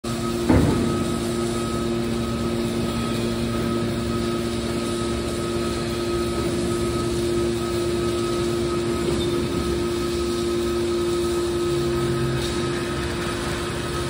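Hydraulic power unit of a heavy scrap metal baler running with a steady hum and whine while its cylinders swing the press lid shut. A sharp knock about half a second in.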